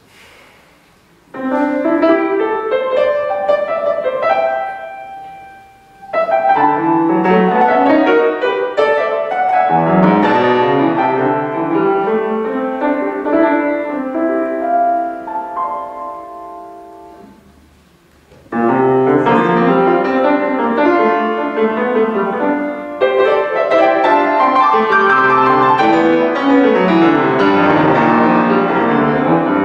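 Solo grand piano playing a classical piece. Loud chords come in about a second and a half in; the playing dies away twice, near six and near eighteen seconds, and each time starts again loudly.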